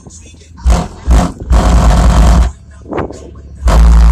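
Bass-heavy music played loud through a Skar Audio IX 12-inch sealed car subwoofer: deep bass hits and longer held bass notes broken by short quieter gaps, with a long held bass note starting near the end.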